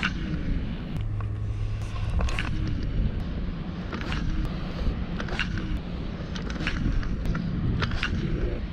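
Shimano Stradic SW spinning reel being cranked and the rod jerked to work a metal jig, giving short, scattered clicks and swishes over a steady low wind rumble on the microphone.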